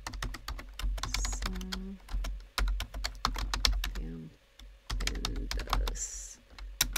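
Typing on a computer keyboard: bursts of quick keystrokes with short pauses between words.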